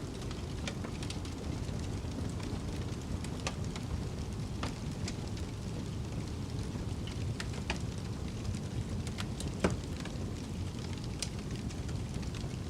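Wood fire crackling in a fireplace: scattered sharp pops and snaps, one louder pop about three-quarters of the way through, over a steady low rumble of snowstorm wind.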